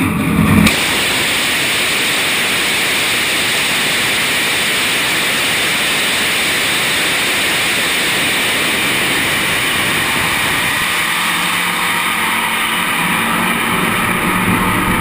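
Hybrid rocket motor firing on a static test stand: it starts abruptly at ignition with a louder burst in the first half second, then runs as a loud, steady rushing noise of exhaust. About eleven seconds in a low steady hum joins it.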